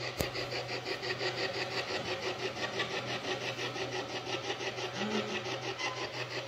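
Spirit box running: static hiss pulsing about four to five times a second as it sweeps, over a steady low hum, with one sharp click just after the start.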